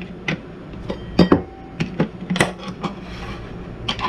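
Light clicks and knocks of a metal pet-food can and a stainless steel bowl being handled on a countertop, a scattered series of small taps.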